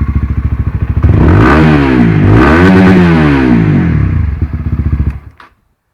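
Honda CBR 125R's single-cylinder four-stroke engine through a Scorpion aftermarket muffler: idling with an even beat, blipped twice so the pitch rises and falls, settling back to idle and then switched off about five seconds in.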